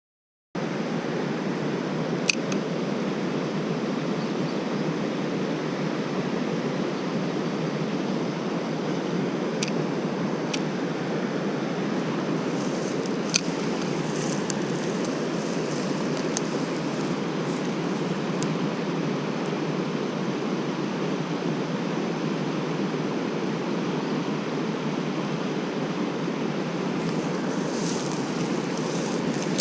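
Steady rush of a mountain stream's flowing water that cuts in abruptly about half a second in, with a few faint sharp clicks over it.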